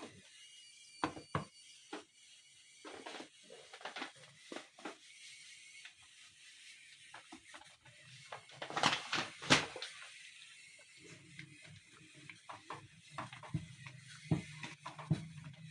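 Irregular knocks, clicks and scrapes of utensils against a pot, with two louder clatters about nine seconds in and a low steady hum joining from about eleven seconds.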